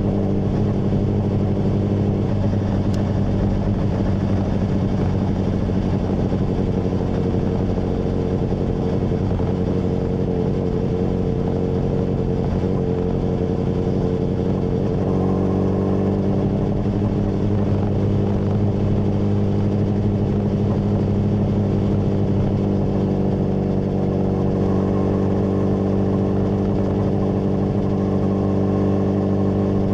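Honda CBR600RR inline-four engine running steadily through a MIVV full exhaust, its pitch shifting slightly about two seconds in and again midway.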